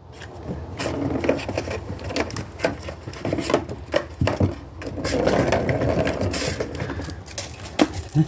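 Kitten scratching and digging in cat litter to cover its waste: a run of quick, irregular scrapes, densest about five seconds in.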